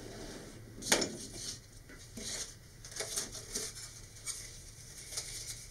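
A sharp clack about a second in as a steel ruler is laid down on a cutting mat, then light clicks and crackling as a thin vacuum-formed plastic wrap is handled and fitted around a cardboard body tube.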